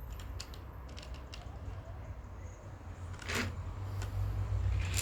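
Light plastic clicks of keycaps being handled and pressed onto a mechanical keyboard's switches, over a low hum: a few faint ticks in the first second or so and a sharper click about three and a half seconds in.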